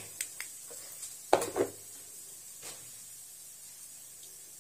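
A few light knocks and clicks, the loudest about a second and a half in, over a faint steady hum.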